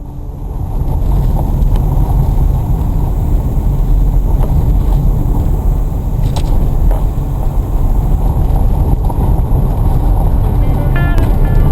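Dacia Duster driving off-road: a steady, heavy low rumble of engine and tyres with a few short knocks, fading in at the start.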